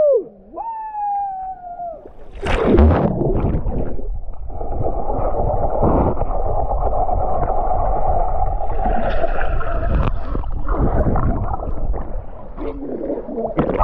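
A man gives a falling yell, then plunges under the river water with the camera. About two and a half seconds in comes a splash, followed by several seconds of muffled, gurgling underwater rushing heard through the submerged camera. Near the end he breaks the surface and shouts again.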